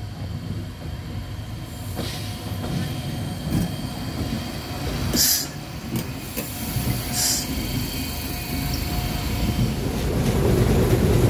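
Historic Gem 4/4 locomotive running slowly past along a station platform, a low rumble that grows as it comes close. Two short hisses come about five and seven seconds in.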